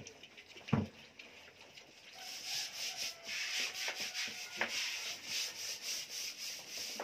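Piglets feeding from a rubber feeder ring of dry feed: quick, repeated scraping and munching as their snouts root through the feed. There are two sharp knocks in the first second.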